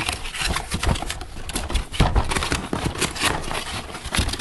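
Cardboard box flaps and plastic-bagged parts being handled: an irregular run of knocks and scrapes with rustling between them.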